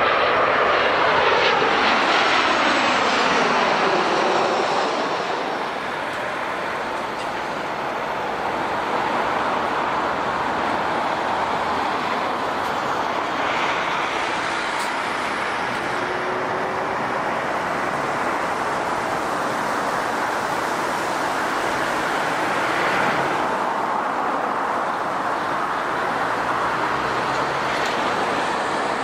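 Boeing 737-800's CFM56 turbofan engines passing low overhead on landing approach; the engine whine drops in pitch as the jet goes by and eases off within about five seconds. A steady, quieter rumble of jet noise follows.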